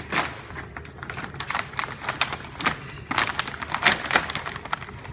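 Heavy polyethylene shrink-wrap film crinkling and crackling in irregular bursts as it is handled and folded, with a few dull taps.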